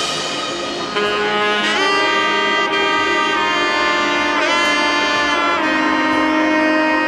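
Background music: a melody of long held notes with pitch bends, louder from about a second in.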